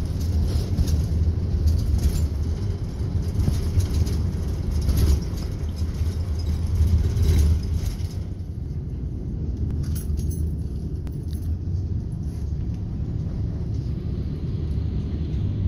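Steady low rumble of an airport shuttle bus driving, heard from inside the cabin, with tyre and road noise and small knocks that ease off about halfway through as the bus slows.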